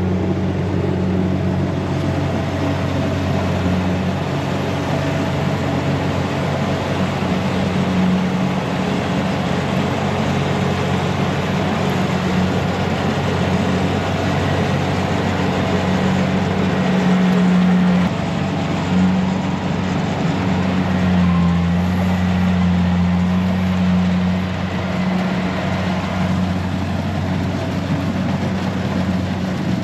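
The engine of a rice harvester runs steadily with a constant low drone. It swells briefly a little past halfway.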